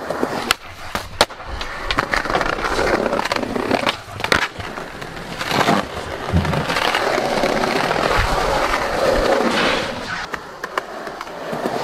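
Skateboard wheels rolling on rough pavement, broken by several sharp clacks of the board and trucks striking concrete.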